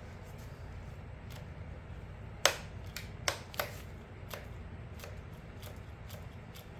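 A string trimmer being handled on the bench: a run of sharp clicks and taps, the loudest about two and a half seconds in, then three more close behind it and a few fainter ones, over a steady low hum.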